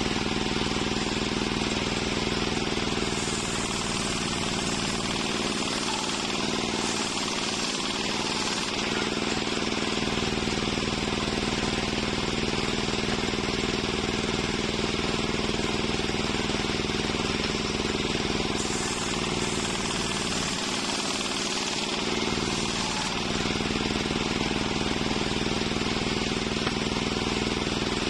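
Large sawmill circular saw running and ripping boards of waru wood: a steady machine hum under a dense rasp of cutting, the sound shifting twice as boards are fed through the blade.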